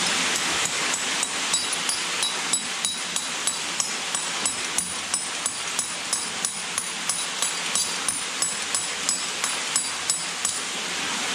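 Hammer tapping a steel anchor bolt set into limestone, a quick steady series of strikes, about three to four a second, each with a bright metallic ring. The bolt is being driven in and checked that it is secure.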